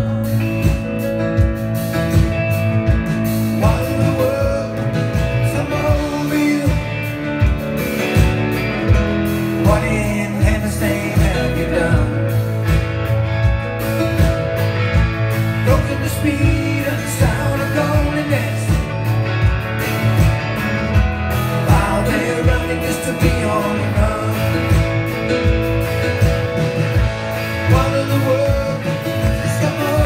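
Live rock band playing an instrumental passage: electric guitars, keyboard and drums with a steady beat, with a saxophone in the band.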